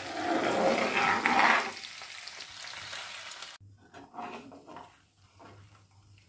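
Butter bubbling and sizzling in a nonstick pan as it cooks down into ghee, with a steel spoon stirring through it. The sizzle is loud for the first couple of seconds, then drops away suddenly after about three and a half seconds to faint crackling and a few light spoon scrapes.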